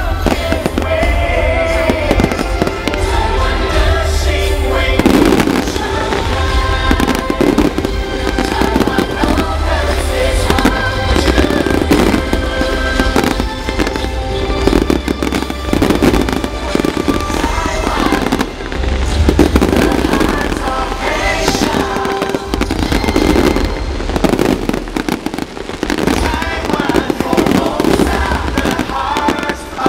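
Fireworks exploding in rapid, continuous succession, with music playing under them.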